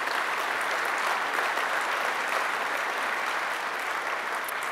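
Audience applauding steadily, the clapping beginning to fade near the end.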